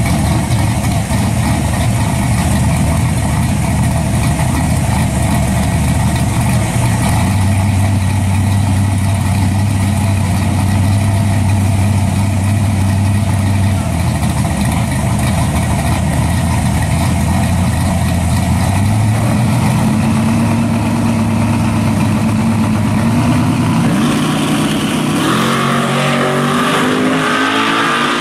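A 1969 Chevelle Malibu drag car and a second car idling at the starting line, with the engine note rising around twenty seconds in. About twenty-five seconds in they launch, and the engines climb steeply in pitch as both accelerate away.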